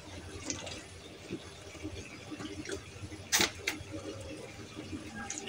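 Scattered light clicks and taps, the sharpest about three and a half seconds in, over a faint outdoor background.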